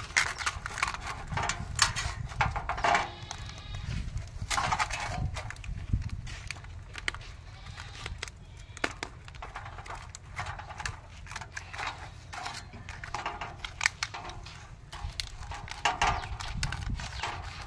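Aluminium foil crinkling and rustling under hands as binding wire is wrapped and twisted around a foil-wrapped fish. An animal bleats a few times in the background.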